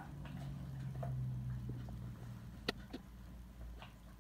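Doberman making a low, steady grumble close to the microphone that swells about a second in, with two sharp clicks a little before the end.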